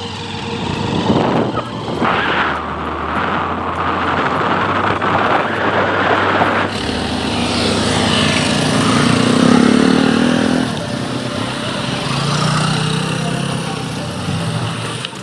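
Motorcycles and scooters running along a road, heard from a moving vehicle. About eight seconds in, a scooter running close alongside makes the engine sound louder for a few seconds.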